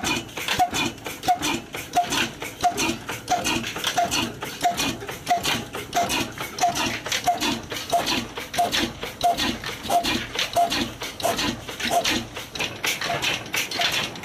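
Old 35 HP Ruston Hornsby diesel engine running slowly and steadily, about three exhaust beats every two seconds. Each beat carries a short high chirp and a thump, over a constant mechanical clatter.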